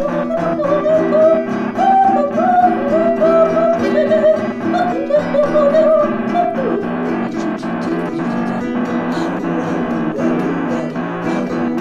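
Music: a woman sings a Tuvan-language folk song over fast, evenly strummed balalaika strings and a steady low drone. The voice stops about six and a half seconds in, leaving the strumming and the drone.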